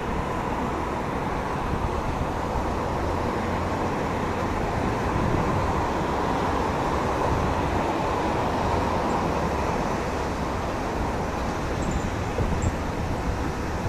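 Jet engines of an approaching Airbus A319 airliner, its CFM56 turbofans at approach power: a steady rumble with a thin whine over it, growing slightly louder as the aircraft comes in to land.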